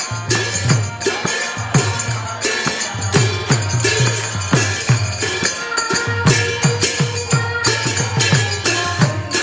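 Kirtan accompaniment: a mridanga (khol) drum playing a steady rhythm of strokes, each with a falling bass tone, under bright clashing hand cymbals (kartals). A held melodic note joins about six seconds in.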